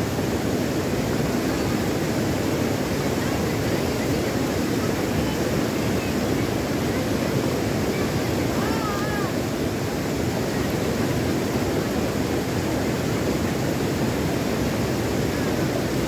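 Shallow stream flowing over stones: a steady, even rush of water.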